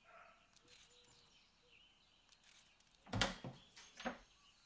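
Quiet outdoor background with a sharp click about three seconds in, followed by two softer clicks.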